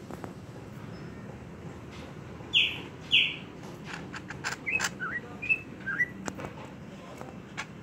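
Pet bird chirping: two loud short falling calls about half a second apart, then a quick run of short clicking notes and brief chirps.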